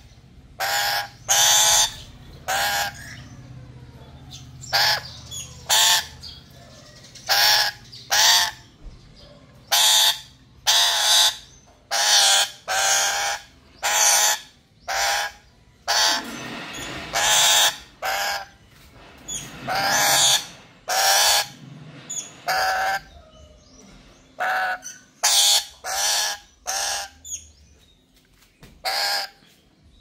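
Black-capped lory screeching: loud, harsh squawks repeated about once a second, with a few longer drawn-out calls in the middle.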